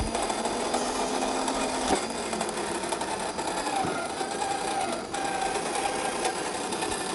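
RC crawler's small electric motor and gearbox whining, the pitch sliding up and down as the throttle changes, over the crunch of the tyres working across rough ground.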